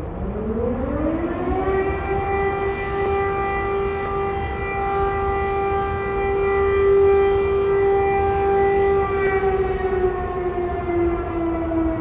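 Air raid siren sounding an alert: its wail rises in pitch over about a second and a half, holds a steady tone for several seconds, then starts to slowly fall near the end.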